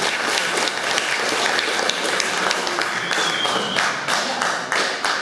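Audience applauding in a hall: many hands clapping at once, dying away near the end.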